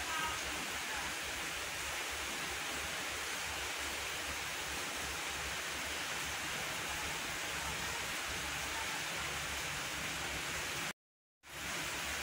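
Steady, even background hiss with a faint low hum, no other events; the sound drops out completely for about half a second near the end.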